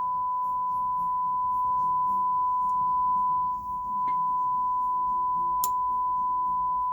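A steady 1 kHz sine test tone passing through a Dynaco PAT-5 preamplifier during a channel test. The level dips briefly about three and a half seconds in, and a sharp click comes about five and a half seconds in.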